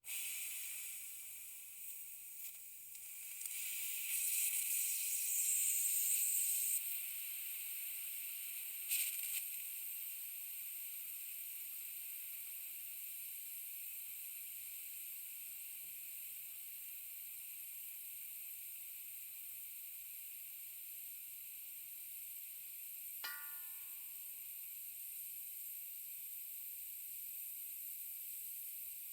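Compressed air escaping from a leaking air tank: a steady high hiss that swells louder from about four to seven seconds in, with a brief sharper burst near nine seconds. A short metallic ring sounds once near the end.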